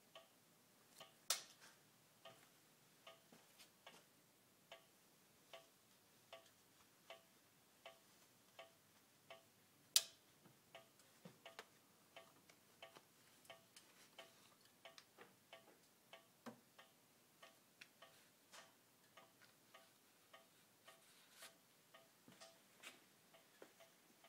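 Sharp ticking from a BMW N54 twin-turbo inline-six engine, a little more than one tick a second at first, then quicker and less even after about ten seconds. Two ticks, about a second in and about ten seconds in, are louder than the rest.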